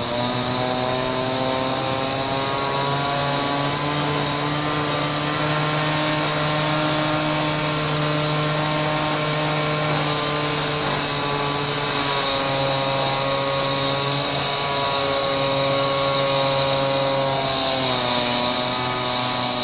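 Concrete saw running steadily as it cuts a stone floor: a motor drone with a hissing grind above it, its pitch shifting a few times as the blade takes the load.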